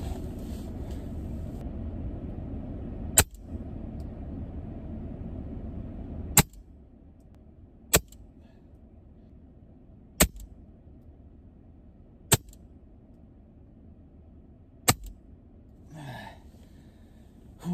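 Six shots from an EDgun Leshiy 2 PCP air rifle, each a short sharp crack, two to three seconds apart, emptying its six-pellet drum magazine. A low background rumble drops away after the second shot.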